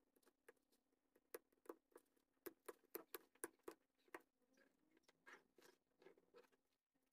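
Faint crackling and clicking as a fingertip picks and scrapes caked grime off the edge of an Adidas Adilette 22 slide's sole: a quick run of small sharp crackles, densest in the middle, easing into softer scrapes near the end.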